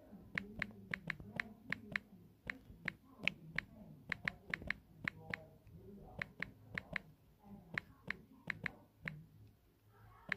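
Typing on a smartphone's on-screen keyboard: a quick, irregular run of sharp key-tap clicks, a few a second.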